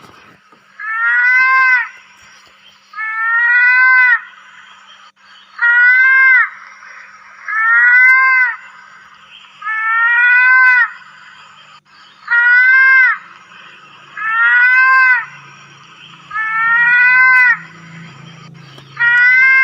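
Mouse-deer (kancil) calling: a high, pitched cry about a second long that rises and then dips slightly at the end, repeated at a very even pace about every two seconds, nine times.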